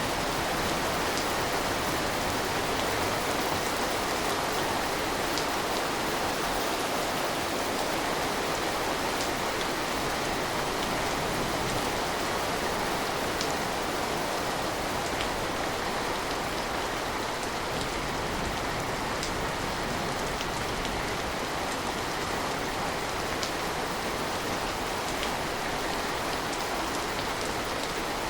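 Steady rain falling, with scattered faint drop ticks over an even hiss.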